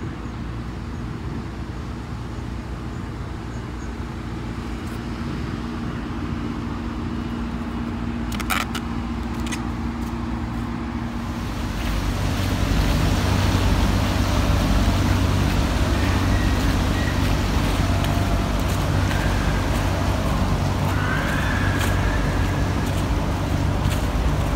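Steady low rumble of vehicle engines and traffic, with a held hum in the first half, growing louder and fuller about halfway through.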